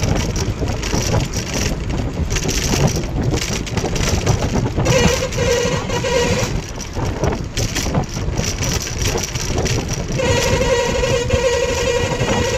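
Wind and road noise from a moving vehicle, a steady rumbling rush. Twice a wavering, steady pitched tone sounds over it: for about a second and a half near the middle and again for the last couple of seconds.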